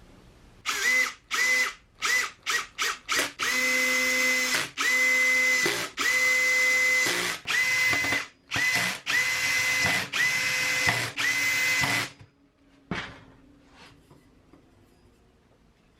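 Cordless drill-driver driving screws to reassemble the monitor's metal frame: a few short trigger bursts, then a string of runs of about a second each with a steady motor whine, stopping about twelve seconds in. A single sharp click follows a second later.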